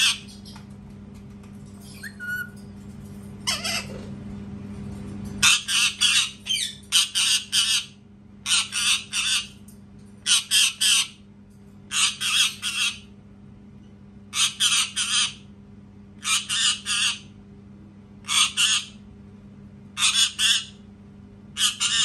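Indian ringneck parakeet screaming: loud, harsh screeches in quick runs of two to four, repeating every second or two. There is one screech at the very start, then the runs begin about five seconds in.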